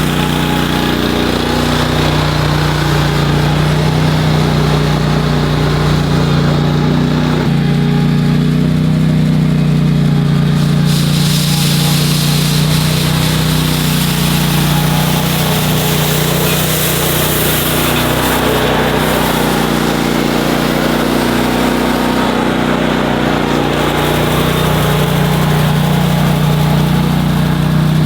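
The engine of a BOSS SR MAG snow machine with a broom attachment, running steadily at working speed. A brighter hissing sweep joins it for several seconds in the middle.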